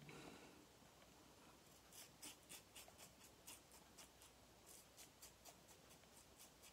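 Double-edge safety razor scraping through stubble in short, faint strokes, about three a second, starting about two seconds in.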